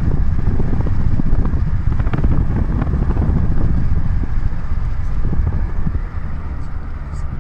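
A moving car heard from inside: a steady low rumble of road and wind noise, easing slightly near the end.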